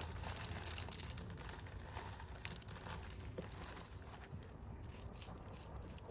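Small river rocks poured into the bottom of a dug hole, a run of clattering and crunching clicks that is dense for the first few seconds, then thins out.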